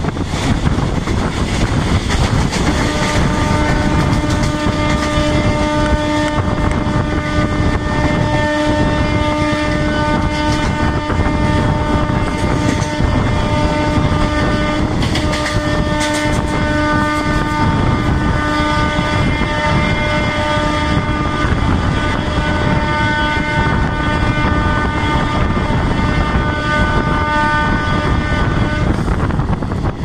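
Electric multiple unit's horn held in one long continuous blast, starting about three seconds in and cutting off just before the end, over a loud rush of wind and wheel noise from the open doorway of the train running at speed.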